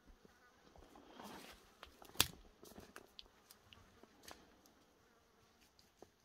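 A horse grazing: scattered small tearing and crunching sounds as it crops and chews grass, with one sharper snap about two seconds in. A faint insect buzz sits behind it.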